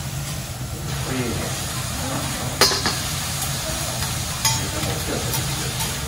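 Oil sizzling on a steel teppanyaki griddle where an onion slice is frying, over a steady low hum. A metal utensil clinks sharply on the griddle twice, about two and a half and four and a half seconds in.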